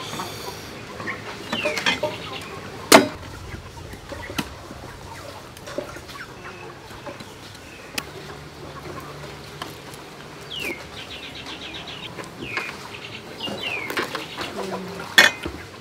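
Chickens clucking now and then in short calls, with a few sharp knocks as a cleaver chops into a durian's spiky husk on a bamboo table.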